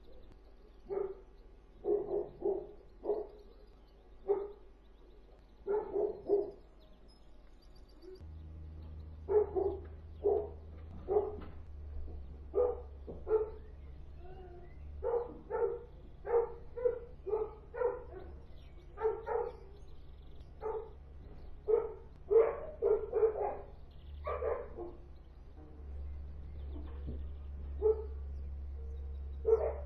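Dogs barking over and over in short volleys of two to four barks: the persistent nuisance barking complained of. A steady low rumble sits underneath from about eight seconds in.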